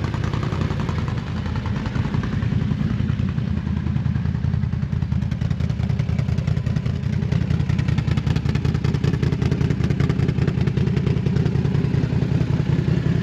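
Can-Am ATV's Rotax V-twin engine running through an aftermarket exhaust: a loud, steady, deep note of rapid firing pulses.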